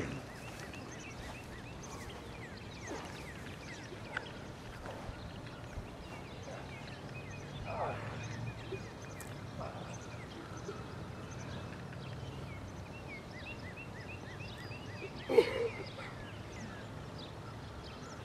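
Outdoor field ambience: steady low background noise with faint, repeated high chirps. A brief louder call or shout comes about eight seconds in and a stronger one about fifteen seconds in.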